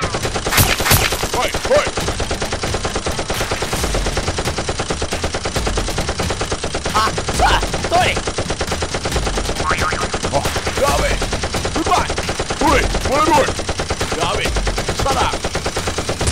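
Rapid automatic gunfire sound effects, a steady, unbroken stream of shots several per second, dubbed over blasters being fired in a staged Nerf battle.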